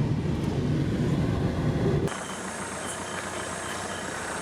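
A motor vehicle's engine running with a low, steady rumble. It cuts off abruptly about two seconds in to a quieter steady hum with a faint high whine.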